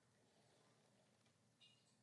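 Near silence: room tone, with a faint brief rustle near the end.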